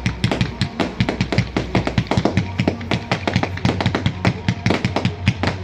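Fireworks bursting overhead in a rapid, uneven string of sharp pops and crackles, several a second.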